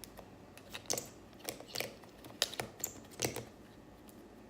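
Irregular light clicks and taps of small objects being handled, about half a dozen sharp ones spread unevenly.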